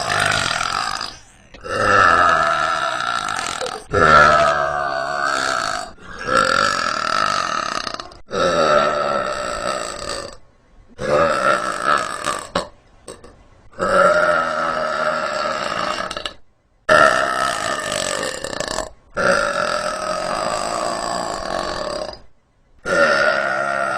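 A woman belching deeply over and over: about ten long, drawn-out belches in a row, each lasting around two seconds, with short breaks between them.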